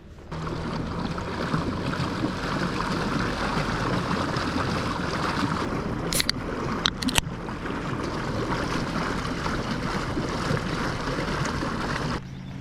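Motorised fishing kayak under way: steady rushing of water and wind, with a low, steady hum from its electric motor. Two or three sharp knocks come about six and seven seconds in.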